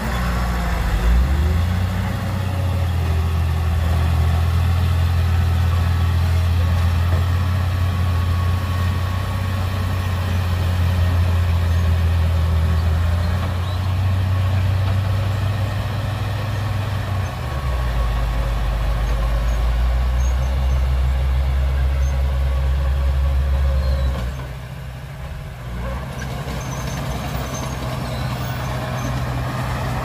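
Heavy diesel engine of a dump truck or earthmoving machine running with a low steady drone. Its pitch drops about 17 seconds in, and it eases off briefly around 25 seconds before picking up again.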